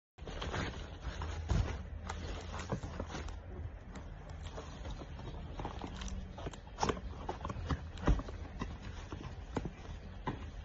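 Irregular clicks and knocks over a steady low hum, typical of a stainless steel kettle being handled; the loudest knocks come about one and a half seconds in and again about eight seconds in.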